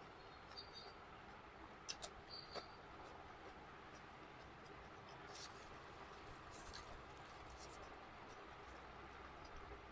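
Faint eating sounds over quiet room hiss: a few soft clicks and smacks of chewing about two seconds in, and a brief rustle or smack about five and a half seconds in.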